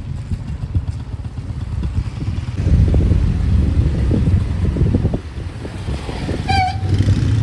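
Motorcycle engine running on the move, louder from about two and a half seconds in. A short horn beep near the end.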